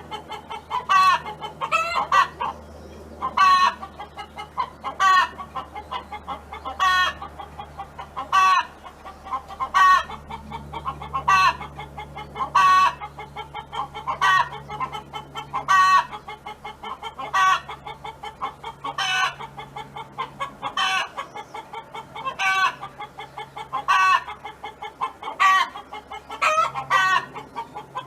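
Domestic hen clucking in a repeated series of short calls, roughly one every second or two.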